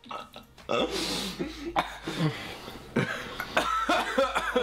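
A man coughing and making rough, strained throat noises, a reaction to a mouthful of extremely sour malic-acid smoothie. The noises start about a second in and come in several rough fits.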